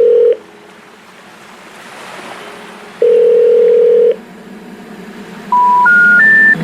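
Telephone line tones: a steady ringback tone sounds twice for about a second each. Near the end come three short beeps, each higher than the last, the rising three-tone signal that comes before a 'number not in service' message.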